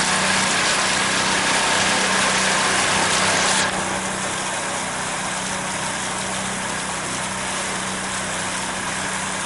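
Pontoon boat's motor running steadily at low speed under a broad hiss of wind and water. The hiss drops sharply about four seconds in, while the motor's hum runs on.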